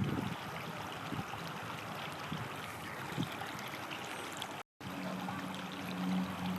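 River water flowing, a steady rushing. It cuts out for a moment about two-thirds of the way through, and after that a low steady hum runs under the water.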